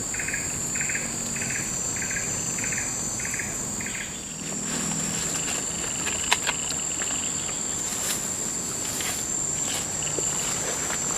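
Insects droning steadily and high-pitched, with a pulsed chirping call repeating about twice a second that stops about four seconds in. A sharp click, with a second smaller one just after, about six seconds in.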